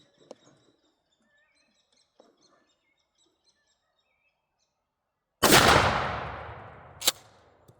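Faint birds chirping, then about five and a half seconds in a single blast from a Mossberg 500 12-gauge shotgun firing a 3-inch Federal 3rd Degree turkey load. Its echo fades over about two seconds and is followed by one sharp clack.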